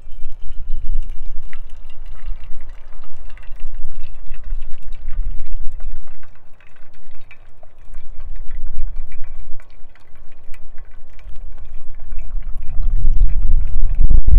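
Hot water poured from a small steel kettle into a pour-over coffee filter over a steel cup, then coffee dripping and trickling through the filter, with many small ticks. A loud, gusty low rumble of wind on the microphone runs under it and swells near the end.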